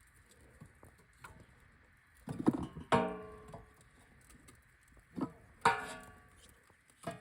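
Metal clanking: two pairs of knocks, each leaving a ringing tone that fades, and a lighter knock near the end.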